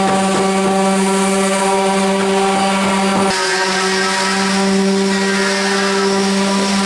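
A motor running loud and steady at one constant pitch, with a slight change in its tone about three seconds in.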